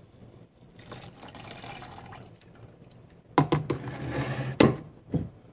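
Liquid trickling as it is poured into a plastic measuring jug of blue-dyed alcohol. About halfway through come several loud clunks and knocks as the plastic jug and bottles are handled on the table.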